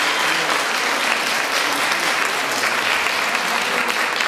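Audience applauding steadily at the end of a stage dance performance.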